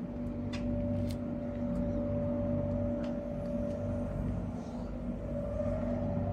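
Shacman L3000 truck engine running steadily, a constant hum with a few short sharp clicks over it.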